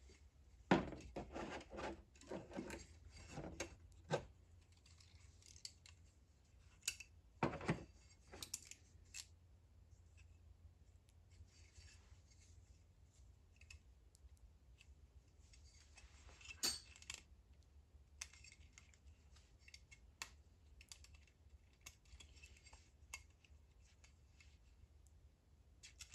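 Thin steel piston rings, Total Seal gapless rings, clicking and scraping against the piston as they are worked onto the ring grooves by hand. There is a flurry of light metallic clicks and scrapes in the first four seconds, louder strokes near eight seconds and again near seventeen, and sparse faint ticks in between.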